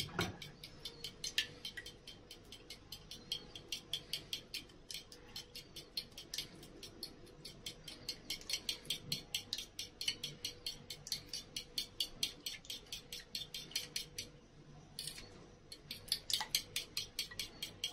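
A fork beating raw eggs in a ceramic plate: quick, rhythmic clicks of the fork striking the plate, several a second, with a brief pause about fifteen seconds in.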